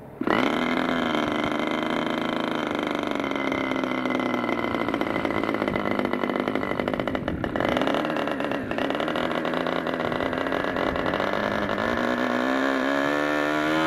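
Meteor 60 MkII two-stroke glow model engine, turning an 11x7 propeller, catches almost at once on an electric starter and runs steadily at low speed. The revs dip briefly a couple of seconds in and climb near the end as the carburettor is adjusted.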